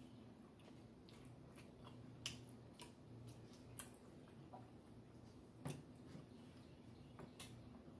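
Faint wet mouth clicks and smacks of a person chewing a mouthful of macaroni and cheese, with a few sharper clicks standing out, over a low steady hum.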